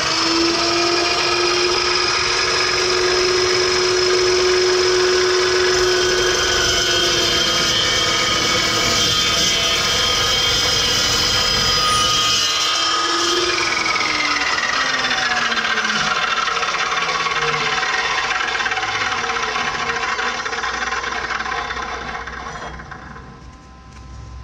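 Evolution dry-cut chop saw with a carbide-tipped blade running at full speed and cutting through steel. About halfway through, the motor tone dips and recovers, then falls steadily in pitch as the blade coasts down and fades out.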